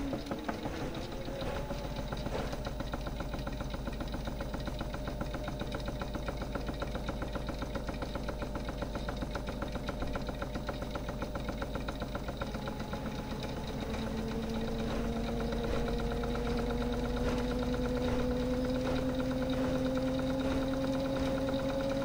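Miele Softtronic toy washing machine running its small motor, with a fast even pulsing from the turning drum. The motor's pitch rises as it starts up, then climbs slowly again from about halfway through as the drum gathers speed.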